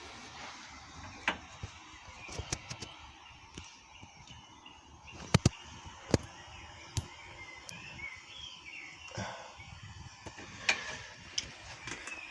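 A scattered series of sharp clicks and knocks, about ten in all, the loudest two close together about five and a half seconds in. Faint bird chirps in the background.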